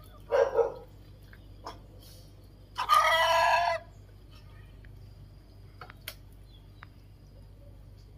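Two animal calls: a short one about half a second in, then a loud, strongly pitched cry lasting about a second, about three seconds in. A few faint clicks fall between them.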